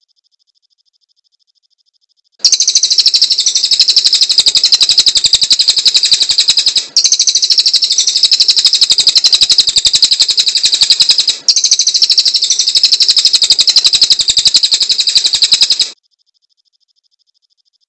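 Cililin songbird singing a loud, rapid, high-pitched trill: a dense string of notes that starts about two seconds in and runs for some thirteen seconds, broken twice for an instant.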